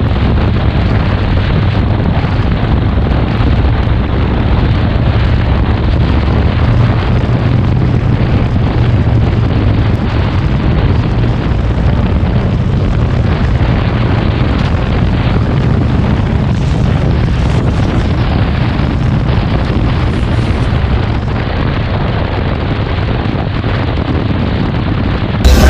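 Harley-Davidson Road King's V-twin engine running at road speed under a steady roar of wind buffeting the microphone.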